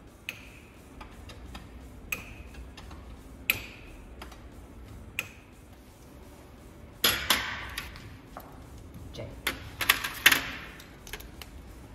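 Metal hand tools clinking against a partly stripped Yamaha Tricity 300 engine during disassembly: single sharp metallic clicks with a brief ring about every second and a half, then a louder clatter about seven seconds in and a quick run of sharp metal knocks near ten seconds.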